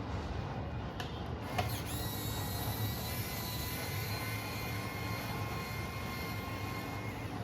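Small electric screwdriver whirring as it backs out the drone's shell screws, with a steady high whine that starts about a second and a half in and stops near the end. A couple of light clicks come before it, over a constant low hum.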